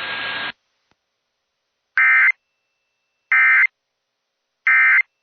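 EAS end-of-message signal: three short identical bursts of SAME digital data tones (the "NNNN" code), about a second and a third apart, closing a NOAA Weather Radio alert. Radio hiss cuts off about half a second in, before the first burst.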